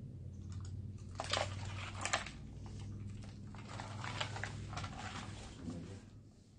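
Thin plastic tray and ice being handled, crackling and crunching about a second in and again near two seconds, then softer rustling. A steady low hum lies underneath and stops about five seconds in.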